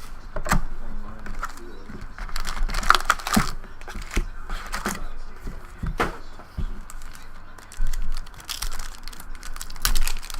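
Trading cards being handled and flipped on a table: irregular clicks, taps and short rustles.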